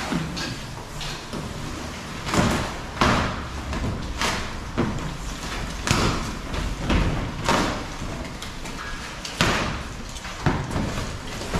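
A large cardboard motorcycle shipping box being torn open and its flaps pulled back: a string of short rips and scrapes of cardboard, with a few thuds.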